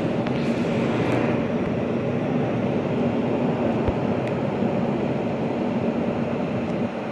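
Steady, even drone of outdoor background noise with a faint low hum running through it, and a faint tick about four seconds in.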